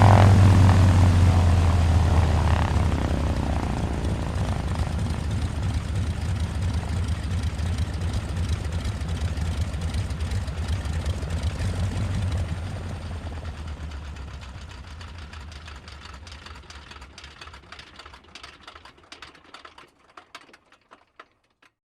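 Single-engine propeller airplane engine dying away from a loud drone. In the last several seconds it breaks into separate beats that come more and more slowly until it stops just before the end.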